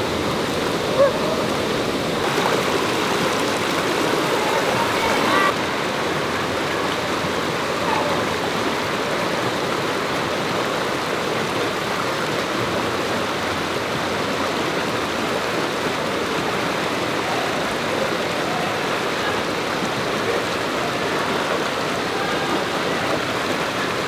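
Waterfall: a steady, even rush of falling water that does not let up.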